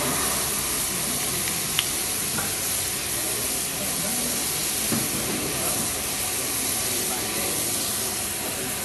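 Cauliflower, carrots and green beans sautéing in butter in a frying pan on a gas burner: a steady sizzling hiss, with one sharp click about two seconds in.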